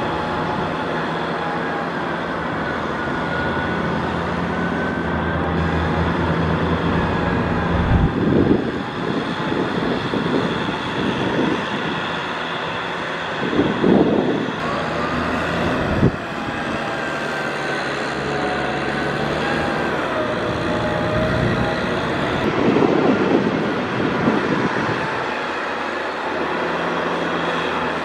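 Tractor engine running steadily under load while pulling a disc plough through wet mud, with a few louder swells of noise along the way.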